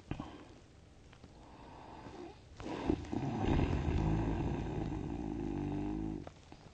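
A sleeping person snoring. A softer breath swells slowly, then about halfway in comes one long, loud snore with a fast fluttering buzz, lasting about three seconds and ending abruptly.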